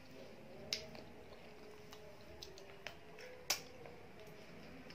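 Eating rice and curry by hand: a few sharp, short clicks and smacks from fingers working the food and the mouth, the loudest about three and a half seconds in.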